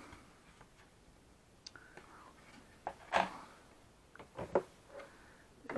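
Handling noise from a Pro Boat Blackjack 29 RC boat's hull and its removed hatch cover being moved about: a few short knocks and taps, the loudest about three seconds in and again around four and a half seconds in.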